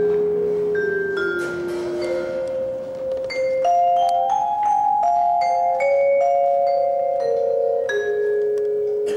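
Percussion ensemble playing mallet keyboards, vibraphones and marimbas, in a slow chordal passage: struck notes ring on and overlap into sustained chords, with a new note entering about every half second to second.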